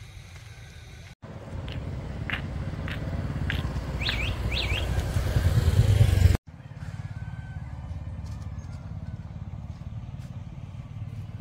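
Motorbike engine running, heard in three cut-together pieces; the middle piece grows steadily louder, with a few short high chirps over it.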